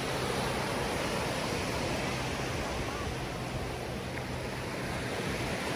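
Small sea waves breaking and washing up a sandy beach, a steady surf wash.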